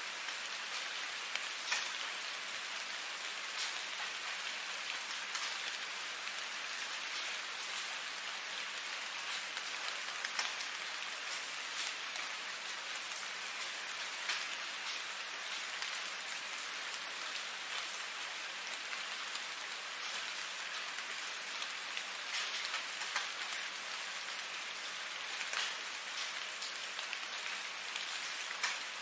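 Steady rain: a dense, even hiss of falling drops, with individual sharper drops standing out every few seconds.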